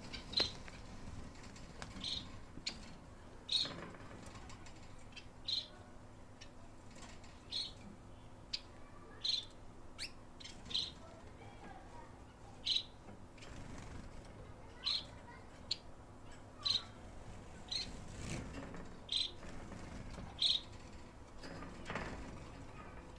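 Pet finches giving short, high chirps, one every second or two, with no song.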